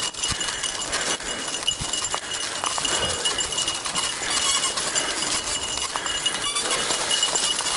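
Fat bike rolling along a dirt trail covered in dry leaves, its tyres crackling and rustling, with two dogs running ahead on a towline and their footfalls mixed in. A thin steady high whine runs under it throughout.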